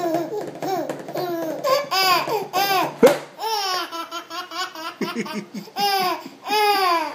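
A baby laughing hard in repeated bursts of high, bouncing belly laughs. About three seconds in there is one sharp slap of a hand on the table, the loudest sound, and the laughter starts up again right after it.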